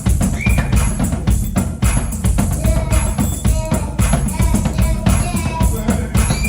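Music with a drum kit keeping a steady beat, with bass drum and snare strokes and pitched instrument lines over it.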